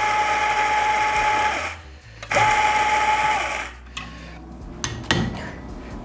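Mazzer Robur S grinder's motor and conical burrs running with a steady hum and whine, grinding out the coffee left in the neck and burrs with the hopper closed off. It stops about one and a half seconds in and runs again briefly for just over a second. A couple of sharp knocks come near the end.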